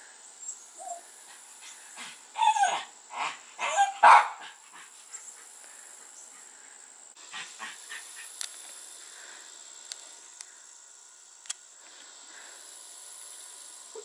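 Rooster crowing once: a loud call in about four notes, the last the loudest, starting about two seconds in. A few faint scattered clicks follow.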